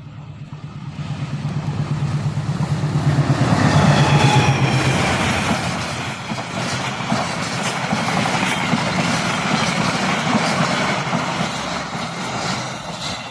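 Diesel-hauled passenger train passing close by. The locomotive's engine rumble builds to its loudest about four seconds in, then the carriages go past with wheels clicking over the rail joints, easing off near the end.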